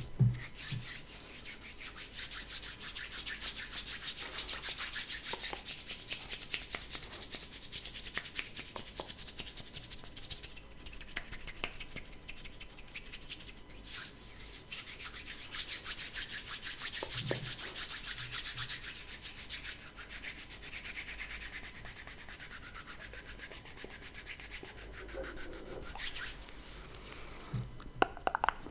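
Hands rubbing together in quick, steady back-and-forth strokes, a dry swishing ASMR hand-rubbing sound. It is louder for the first two-thirds and softer near the end, with a soft knock or two.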